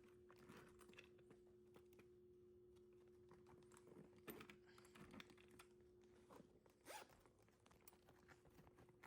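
Faint, scattered clicks and rustles of hand tools being slipped into the pockets of a tool backpack and the bag's fabric being handled.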